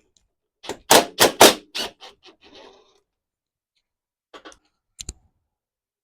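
Sharp metal clicks and clatter of a hand wrench or socket being worked onto a bolt on a mower deck: a quick run of four loud clicks about a second in, trailing into lighter rattling, then two faint ticks near the end.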